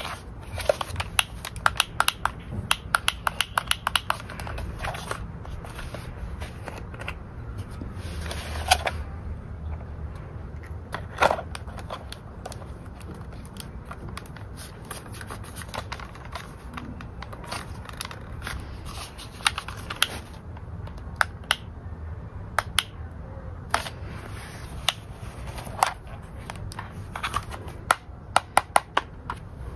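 Hard plastic bubble-gun toy being handled and its bubble-solution bottle fitted: runs of quick sharp clicks and taps from the plastic parts, with two louder knocks about nine and eleven seconds in.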